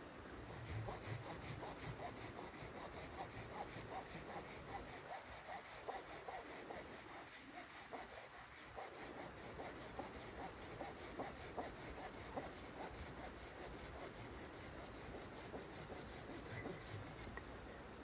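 Folding pruning saw cutting through a branch by hand, in steady, rhythmic back-and-forth strokes. The strokes stop near the end as the cut goes through.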